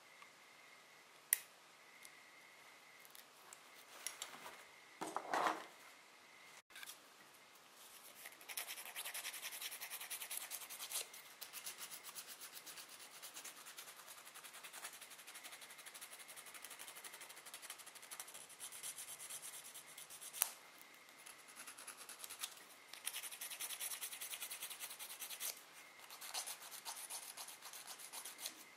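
Nail file rasping quickly back and forth across the tip of a flour-built false nail extension, shaping it, in long stretches with short pauses. Before the filing starts there is a single sharp click and a short scrape.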